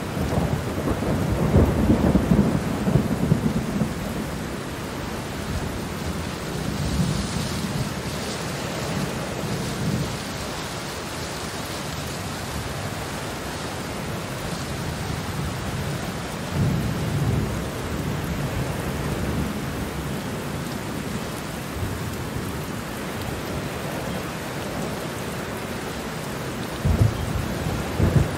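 Steady rain with rolls of thunder, the heaviest rumbles coming in the first few seconds, about midway, and again near the end.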